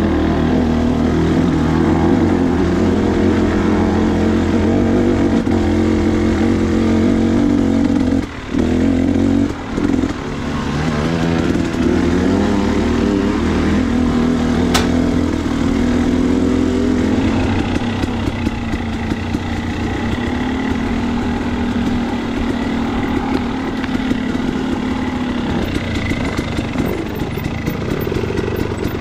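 KTM 250 XC single-cylinder two-stroke dirt bike engine running under changing throttle, its pitch rising and falling, with two brief drops in level around eight and ten seconds in. It settles to a steadier, lower note in the second half.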